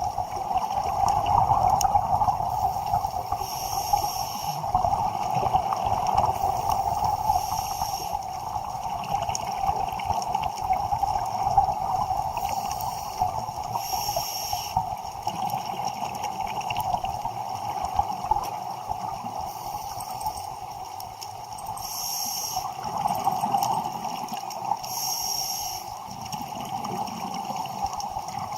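Underwater recording of a scuba diver breathing through a regulator: short hissing inhalations every few seconds and gurgling exhaled bubbles, over a steady muffled water noise.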